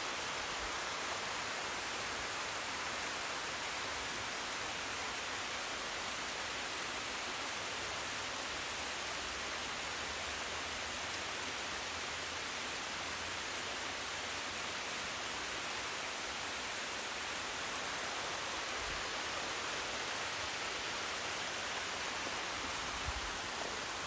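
Small waterfall spilling down a rock face: a steady, even rush of falling water.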